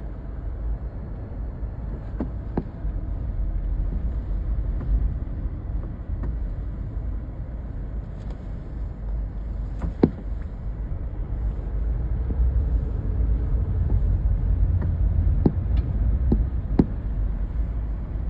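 Steady low rumbling noise, with a few sharp clicks or knocks scattered through it, the strongest about halfway.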